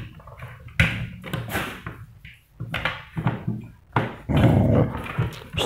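Several dogs crowding close, making short irregular dog noises, with a louder rough stretch about four seconds in.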